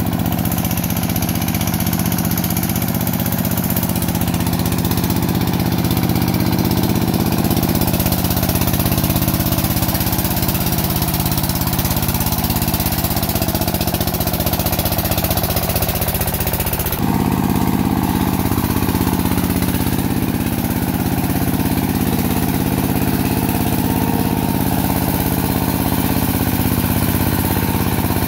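Single-cylinder diesel engine of a công nông two-wheel tractor cart running steadily under heavy load while pulling a loaded trailer, with an even chugging beat and black exhaust smoke. Its note shifts abruptly about two-thirds of the way through.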